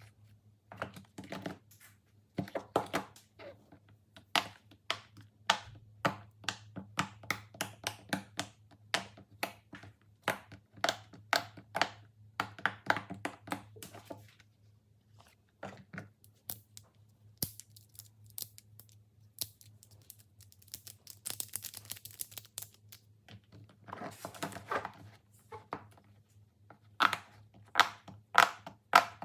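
Plastic fidget toys being handled: a run of irregular clicks and taps, thinning out past the middle, where there is a stretch of crinkling, with the clicks coming thick again near the end. A faint steady low hum runs underneath.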